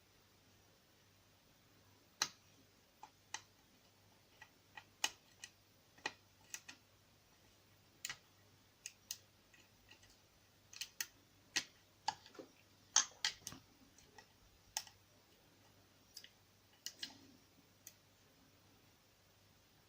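Irregular sharp metallic clicks and ticks of a short hook pick and tension tool working the pins inside a small CISA oval lock cylinder during picking. The clicks start about two seconds in and come unevenly, sometimes in quick clusters.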